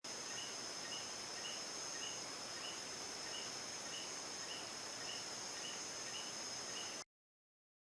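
Night insect chorus: a steady high shrill with a short chirp repeating about twice a second. It cuts off abruptly about seven seconds in.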